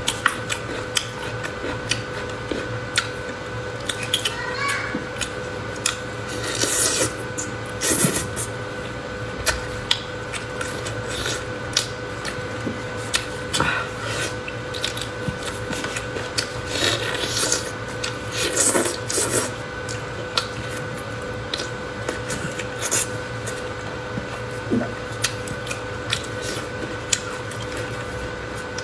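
Close-miked eating sounds: irregular chewing, mouth clicks and short slurps or smacks, with a faint steady hum underneath.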